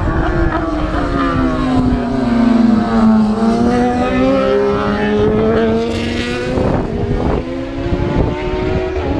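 Racing motorcycle engine slowing into a tight bend, its pitch falling, then accelerating hard out of it, the pitch climbing in steps through a couple of gear changes before it fades away.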